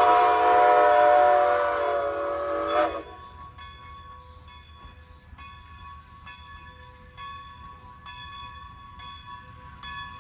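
Steam locomotive whistle blowing a long, steady chord of several notes that cuts off sharply about three seconds in. After it comes a faint bell ringing steadily, a little under two strokes a second.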